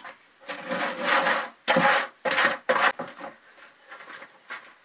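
Rough scraping and rubbing strokes from hand work on building material. About five loud, noisy strokes come in the first three seconds, then fainter ones.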